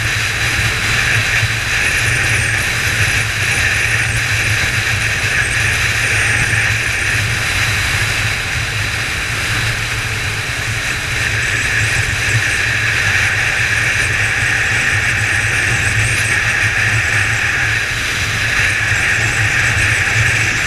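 Kawasaki ZZR1400's inline-four engine running steadily at cruising speed under a constant rush of wind, heard through a GoPro's sealed housing, dipping slightly in level around the middle.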